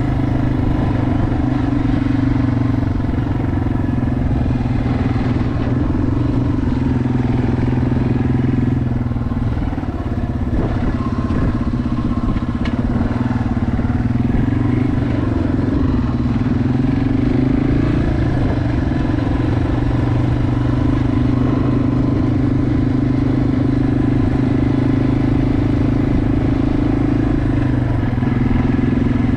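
Yamaha TW200's single-cylinder four-stroke engine running steadily while the motorcycle rides along. The engine note dips briefly about ten seconds in, then climbs back and holds steady.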